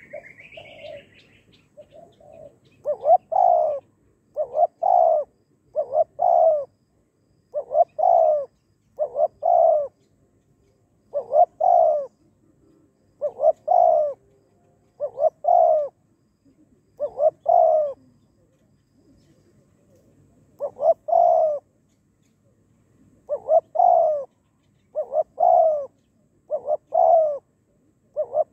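Spotted dove cooing: a steady run of two-part coo phrases, one every second or two, with a brief break about two-thirds of the way through. A short high chirp from another bird is heard at the very start.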